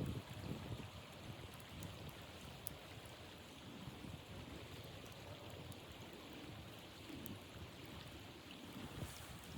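Blizzard wind blowing steadily, with irregular low gusts buffeting and a few faint ticks.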